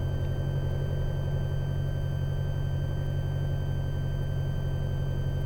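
Piper Cherokee's single piston engine running steadily, heard as a low, even drone through the aviation headset intercom, with a faint steady high whine over it.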